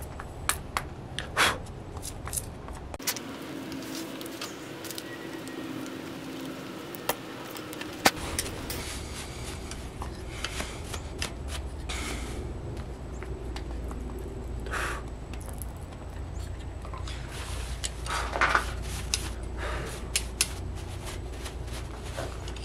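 Hot forged steel held in blacksmith's tongs, rubbed on a lump of wax and wiped with a rag on the anvil face: light clicks and scrapes of steel and tongs on the anvil, with scattered rubbing scuffs. One sharp click stands out about eight seconds in.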